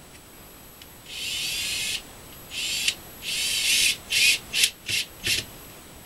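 Cordless drill driving screws into a door-jamb strike plate, its motor whining in three runs of about a second each, then four short bursts.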